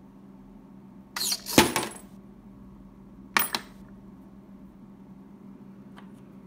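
Brass rifle cases clattering about a second in, with ringing metal-on-metal hits against the aluminium foil tray, then a shorter metallic clink about three and a half seconds in. This is the case handling of a homemade induction case annealer. A steady low hum runs underneath.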